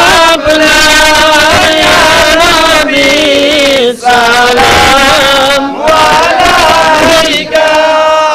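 A man's voice chanting an Islamic devotional song, holding long, wavering notes in phrases broken by short breaths.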